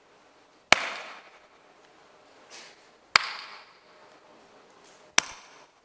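Three sharp single hand claps, about two seconds apart, each a cue for a quick pelvic-floor contraction.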